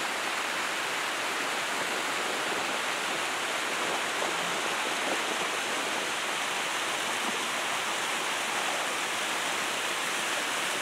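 A steady rushing noise at an even level, with no distinct events in it.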